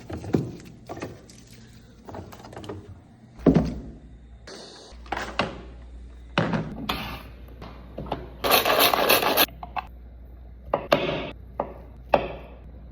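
Kitchen cooking sounds: a string of knocks and clatters from utensils and cookware, with a louder rushing burst lasting about a second past the middle.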